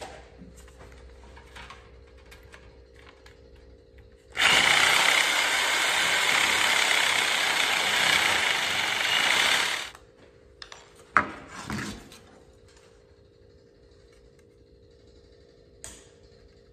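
A power tool working sheet aluminium runs in one loud burst of about five seconds, starting and stopping suddenly. A couple of short knocks follow.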